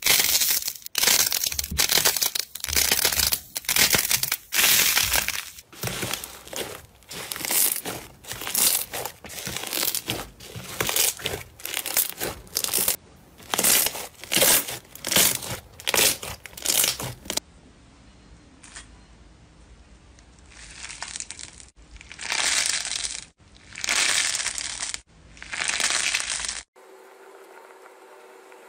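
Hands squeezing and pressing slime and squishy stress balls: a rapid run of short squeezing sounds, about two a second, then after a pause four slower, separate presses. A sudden cut near the end leaves only a faint steady hum.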